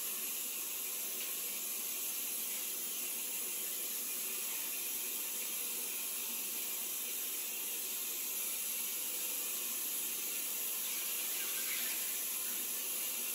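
Sink faucet running steadily as a wash basin is rinsed under the tap water, the rinse step after washing it with soap.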